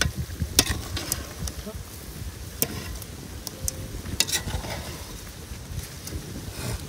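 Chicken pieces and onions in oil and masala being stirred and turned with a metal slotted spatula in a large metal pan. The spatula scrapes and clinks against the pan now and then over a light sizzle.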